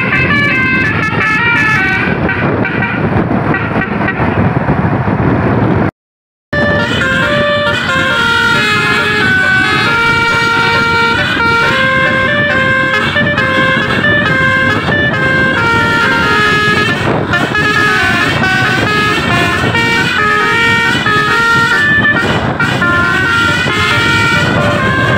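A telolet Basuri musical bus horn playing a tune in stepped notes over bus engine and road noise. The sound cuts out for about half a second around six seconds in.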